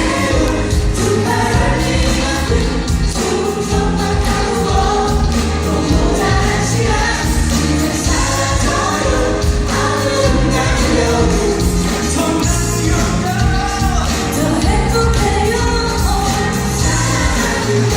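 A live band performing a song: singing over band accompaniment with a steady bass line, continuous throughout.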